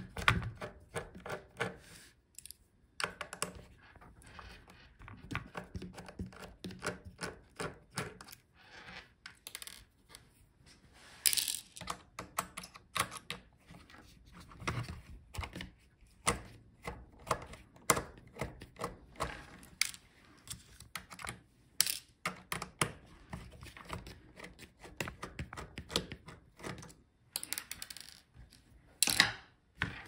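Irregular small metallic clicks and taps of a precision screwdriver working the screws out of a laptop's display hinges, with a few louder knocks from handling the laptop on the table.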